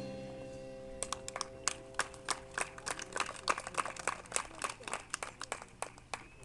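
A marching band's last chord rings out and fades, and about a second in a small audience starts clapping: scattered, uneven claps that thin out near the end.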